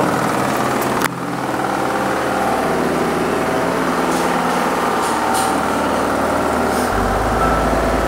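Spin-dryer motor of a Sharp twin-tub washing machine running with a steady hum, with no knocking: the repaired spin tub is running normally. A sharp click comes about a second in.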